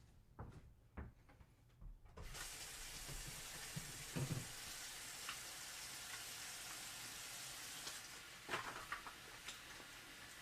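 A few soft knocks, then an even hiss like sizzling or running water that starts suddenly about two seconds in and carries on, with louder knocks about four seconds in and again near the end.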